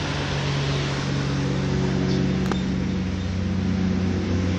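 An engine running steadily, a low pitched hum, with a single short click about halfway through.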